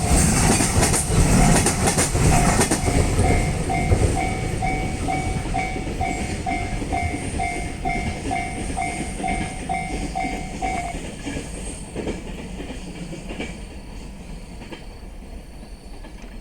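A train running over a Japanese railway level crossing, its wheels clacking over the rail joints, while the crossing's warning bell rings about twice a second. The bell stops about eleven seconds in, and the train noise fades away as it passes.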